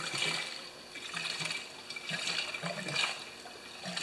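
Gasoline glugging out of a fuel can into a small engine's fuel tank, in a run of irregular gurgling glurps.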